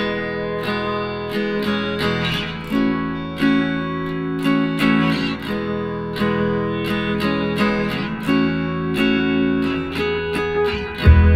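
Background music: a guitar strumming and picking a steady rhythm, with a deep bass note coming in near the end.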